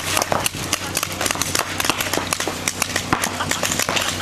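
Paintball markers firing reball rounds during a game: a rapid, irregular string of sharp pops and snaps over a steady low hum.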